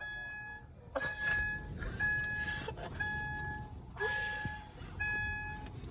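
Vehicle warning beeper sounding a steady electronic beep about once a second, each beep lasting most of a second. A few soft knocks and rustles sound between the beeps.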